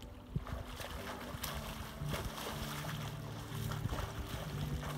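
Splashing from a swimmer's freestyle arm strokes in lake water, with a steady low hum underneath that grows stronger about two seconds in.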